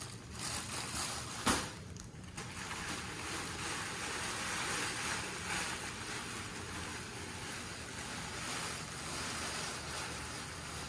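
Nylon fabric play tunnel rustling steadily as puppies scramble in and over it, with one sharp knock about a second and a half in.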